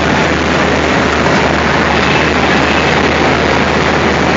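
Diesel locomotive engine running steadily at close range: a loud, even mechanical din with a constant low hum underneath.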